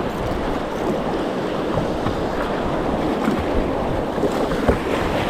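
Whitewater rapids rushing steadily past a paddled boat, with a few small splashes.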